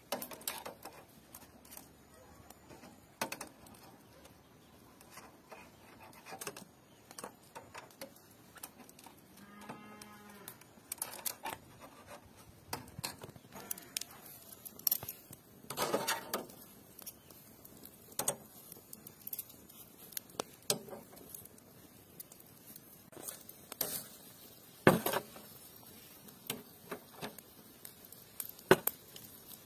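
Steel kebab skewers clinking and knocking against the metal charcoal grill as they are laid across it, in scattered sharp clicks. A cow moos once, briefly, about ten seconds in.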